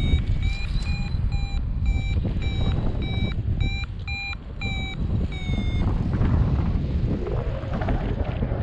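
Paraglider's variometer beeping about two to three times a second, the climb tone that signals rising air. Heavy wind rush on the microphone runs under it. The beeps stop about six seconds in, leaving only wind.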